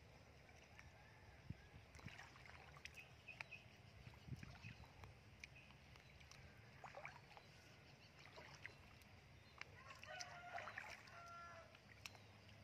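A rooster crowing faintly once, about ten seconds in, over scattered faint splashes of bare feet wading in shallow muddy water.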